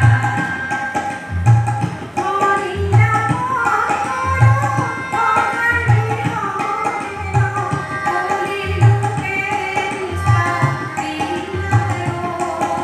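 Live song with tabla accompaniment: a voice sings a melody over the tabla's steady rhythm, whose deep bass strokes fall about every second and a half.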